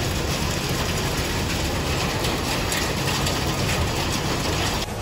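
Steady rain falling, an even hiss that cuts off suddenly near the end.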